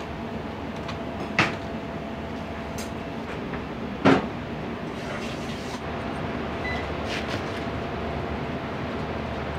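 Restaurant kitchen noise: a steady hum with two sharp clacks, about a second and a half and four seconds in, the second louder.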